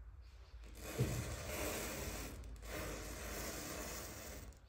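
A row of standing matchsticks catching fire one after another in a chain, match heads flaring in a continuous fizzing hiss. It starts with a sharp flare about a second in and dips briefly near the end.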